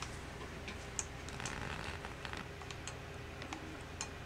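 Soft detent clicks of a phoropter's sphere-power dial being turned step by step, a scattered handful of faint clicks as plus power is added to blur the eye.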